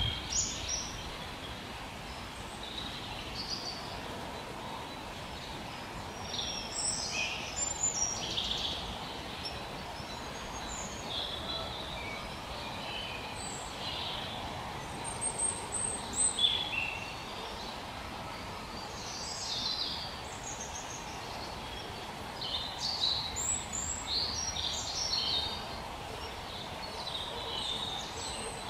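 Small songbirds calling in woodland: short, high chirps and thin twittering calls in scattered clusters, over a steady faint background hiss.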